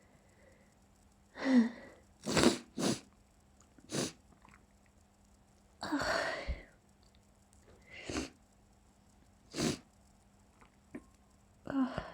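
A person's stifled sneezes, about eight short bursts one after another. A few of them open with a brief vocal 'ah' sound.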